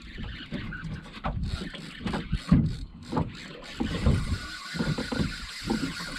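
Water slapping against the hull of a small fishing boat, with irregular low knocks and wind buffeting the microphone.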